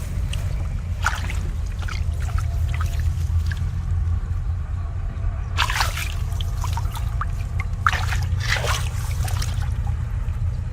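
Shallow rice-field water splashing and sloshing as it is waded through and worked by hand, with a few louder splashes about six seconds in and again around eight to nine seconds, over a steady low rumble.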